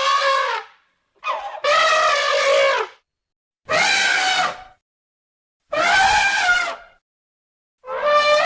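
A cartoon elephant creature trumpeting in a series of loud, brassy calls, each about a second long with short silences between them. Five calls: one ends early, the next starts with a short blip, and the last runs on past the end.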